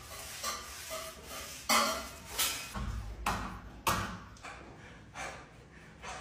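A flexible plastic spatula scraping across a wet faux-marble stucco wall in a series of short, uneven strokes.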